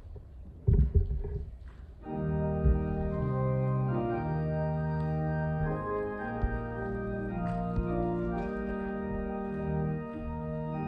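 A few low thumps, then about two seconds in an organ begins playing slow, sustained chords, the notes shifting every second or so.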